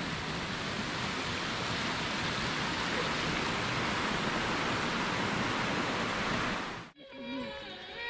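Steady rushing of a flowing stream, an even hiss of water that cuts off suddenly near the end, where faint music comes in.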